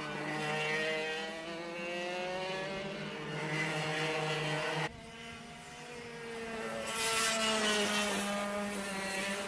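Several 125cc two-stroke kart engines running, their pitches rising and falling against each other. The sound drops away abruptly about five seconds in, then builds back and is loudest, with extra hiss, a couple of seconds later.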